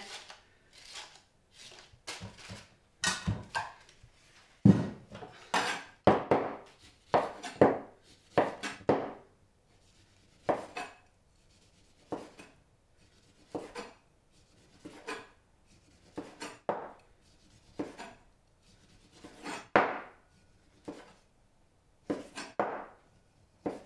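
Kitchen knife cutting the peel and pith off an orange and slicing out its segments on a wooden chopping board: a string of short, irregularly spaced cutting strokes.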